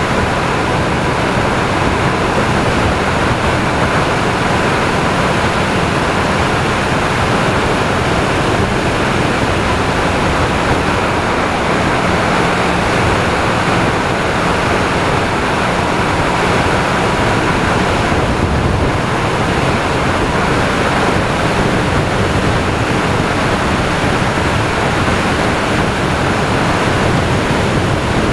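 Steady rushing wind on a camera mounted low on a motorcycle's highway bars at road speed, with the motorcycle's engine faintly underneath.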